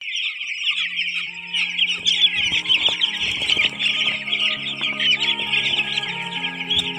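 A large flock of eight-day-old broiler chicks peeping continuously in the brooder, a dense chorus of high chirps. Background music with held notes comes in underneath about a second in.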